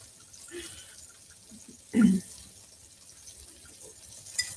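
Faint kitchen handling sounds over a low steady hiss: a short dull knock about two seconds in and a light ringing clink near the end.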